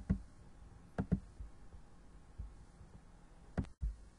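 Three quick double clicks, like a computer mouse button, over a faint room hum; the sound cuts out completely for a moment near the end.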